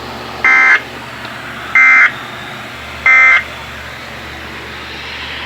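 Three short bursts of SAME digital alert data from a Weatheradio Canada broadcast, each a harsh, buzzing screech of about a third of a second, about a second and a quarter apart. A steady radio hiss runs between the bursts. Bursts this short are typical of the end-of-message code.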